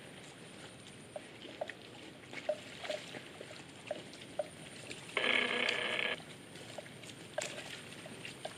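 Marshy grassland ambience: a faint steady high insect hum with scattered short clicks and chirps. About five seconds in, a loud buzzy call lasts about a second.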